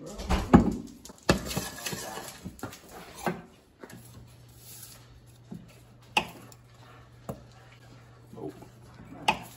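Kitchen handling sounds at a glass-top stove: a few sharp clicks and knocks as butter is unwrapped and set into a frying pan of garlic and olive oil, over a steady low hum. A short, loud, low voice-like sound comes in the first second.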